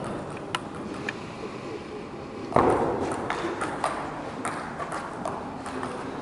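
Table tennis ball in a fast rally: sharp clicks of the celluloid-type ball striking rackets and table in quick succession, over a murmur of spectators in a large hall. A louder burst of noise comes about two and a half seconds in.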